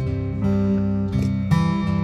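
Guitar music, with new chords struck about half a second and about a second and a half in, the notes ringing on between them.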